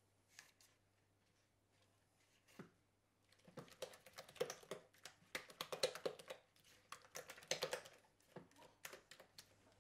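Spatula stirring and scraping cream cheese and icing sugar in a plastic mixing bowl: a couple of lone taps, then a dense run of quick clicks and taps from about three and a half seconds in.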